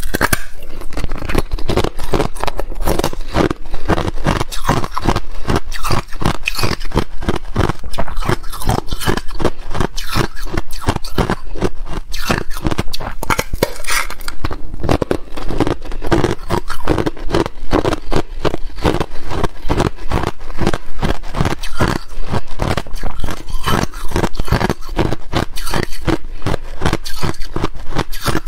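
Thin, clear molded ice crunching and cracking as it is bitten, chewed and snapped apart by hand. Loud, rapid crackling made of many sharp cracks close together.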